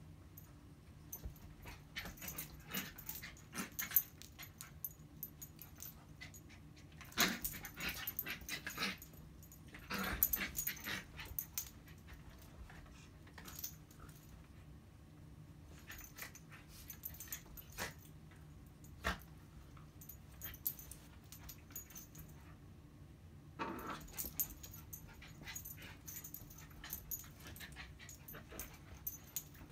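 Two small dogs play-wrestling on a bed: scuffling and short dog sounds in scattered bursts, busiest about a third of the way in and again near the end, with a high metallic jingling in the louder bursts.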